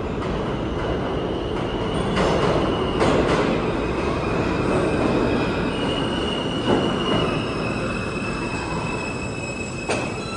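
New York City Subway F train arriving into a station: a loud, steady rumble of wheels on rail, with high steady squeals from the wheels that grow stronger and multiply as it pulls in, and a few sharp clanks.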